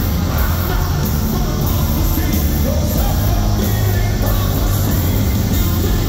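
Live hard rock band playing loud, with electric guitar, bass and drums, heard from within an arena crowd.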